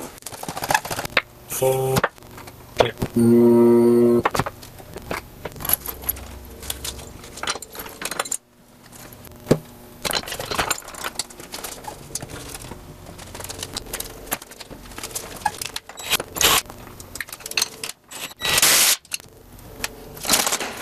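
Workshop handling noises under a car: scattered metal clinks, knocks and scrapes of tools and parts. About three seconds in there is a loud, steady pitched tone lasting about a second, and near the end a short burst of hiss.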